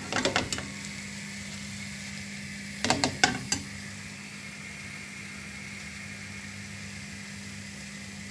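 Grated-potato and egg fritter frying on low heat in butter and oil in an open frying pan, with a steady sizzle. A few sharp knocks come near the start and again about three seconds in.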